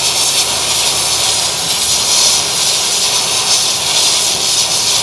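High-pressure washer jet blasting old crusted cement off a concrete floor: a loud, steady hiss of water spray striking the surface.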